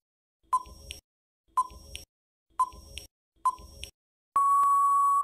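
Countdown timer sound effect: four short beeps about a second apart, then one long steady beep of nearly a second as the count runs out.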